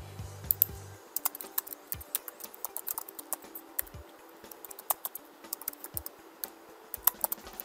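Typing on a computer keyboard: irregular keystroke clicks, some in quick runs.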